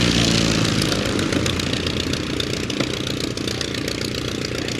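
Avro Anson's twin radial piston engines running at low power with a fast, slightly uneven beat; a steady engine tone fades out in the first second.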